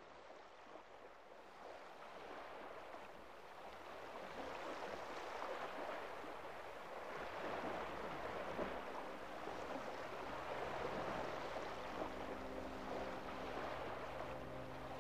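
Opening of the slideshow's backing soundtrack: an even rushing noise fades in from silence and slowly swells. From about nine seconds in, a steady low chord is held beneath it.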